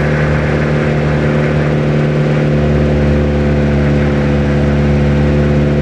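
Old Mitsubishi L300 pickup's engine labouring at steady high revs, hauling a load of red bricks up a climb.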